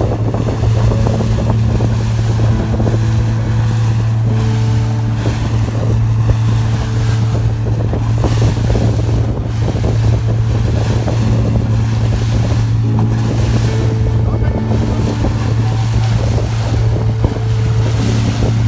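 Excursion boat's engine running with a steady low drone, and wind buffeting the microphone.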